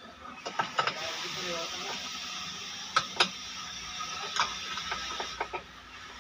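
Small metal clicks and taps as the feed-dog rod is worked by hand into its block inside the arm of a feed-off-the-arm chain stitch machine, over a steady hiss that stops near the end.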